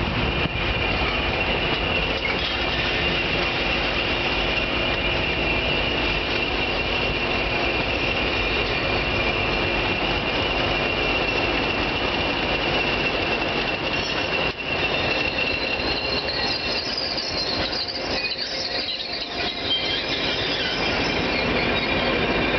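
Slow-moving train passing close by: coaches rolling past with a steady high wheel squeal and clatter on the rails, followed in the second half by two Class 20 diesel locomotives trailing at the rear.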